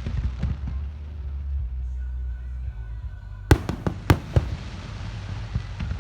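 Aerial fireworks going off: scattered crackles, then three sharp loud bangs in quick succession a little past halfway, over a steady low rumble and background music.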